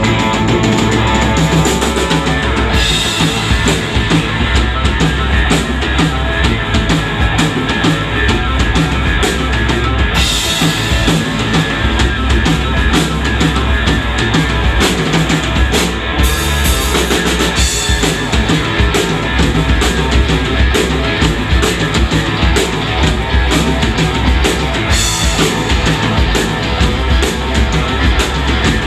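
Live rock band playing loudly: a drum kit with bass drum and snare driving a steady beat under electric guitar.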